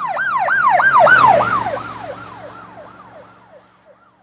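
Emergency vehicle siren in a fast yelp, sweeping up and down about three times a second over a low vehicle rumble. It is loudest about a second in, then drops slightly in pitch and fades away as the vehicle passes.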